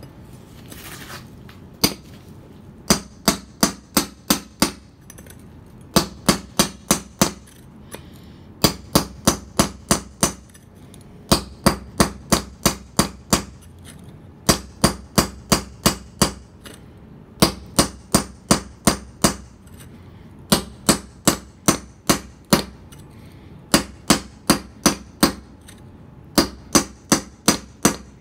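Hammer striking a steel mason's chisel held on a paving stone to cut it: a first single blow, then repeated groups of five or six quick ringing strikes, about four a second, with short pauses between groups.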